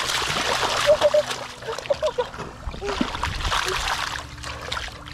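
Muddy shallow water splashing as a fish thrashes and is grabbed by hand, in irregular bursts that ease off near the end.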